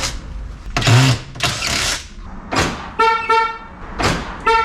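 Car horn sounding two short toots about a second and a half apart, after a few knocks. These are the confirmation chirps of a remote-start alarm being tested on the car.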